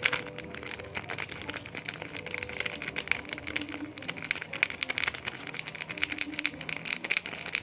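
A dense, irregular run of small crackling clicks while black pepper is added to a mixture of mashed sardines and egg.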